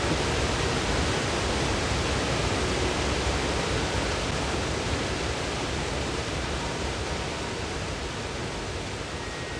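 Water pouring over a low river weir and churning white in the pool below, a steady even rush that slowly fades over the last few seconds.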